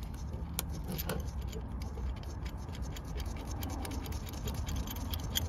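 Light metallic clicks, ticks and scratches from gloved hands fitting a part onto a new rear brake caliper, over a steady low rumble.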